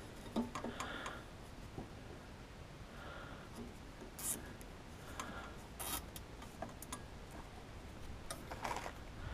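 Faint scattered clicks and handling noises from hands fitting small plastic fasteners to an aluminium cart frame, with a plastic bag crinkling briefly near the end.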